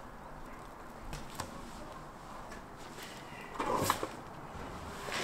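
Handling noises as a whole bison carcass is shifted about on a wooden table: a couple of soft knocks, then a louder brief scraping shuffle about three and a half seconds in.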